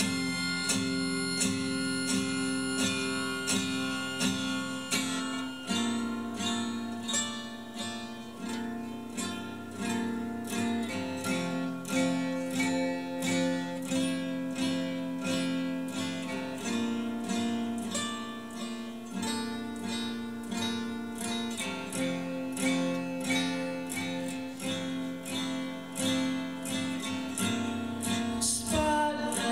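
Acoustic guitar strummed in a steady rhythm, the chords changing every few seconds, during an instrumental passage of a live song. A voice begins singing right at the end.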